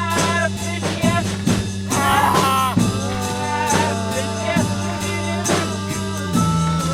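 Background music with a steady drum beat, about two hits a second, over held bass notes.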